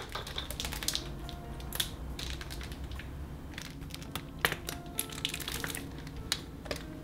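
Close-up crackling and clicking of food handling as mayonnaise is squeezed from a plastic squeeze bottle onto a slice of bread, with sharp crackles scattered throughout.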